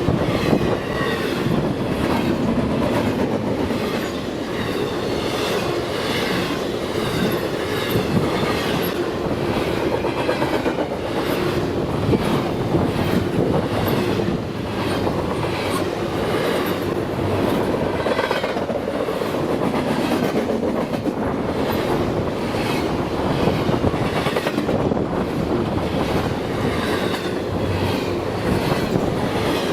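BNSF freight train rolling past, a steady rumble of cars with the wheels clicking rhythmically over the rail joints.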